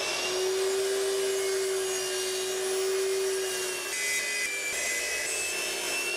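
Metabo HPT miter saw running with a steady whine, its blade cutting into a maple table leg about four seconds in.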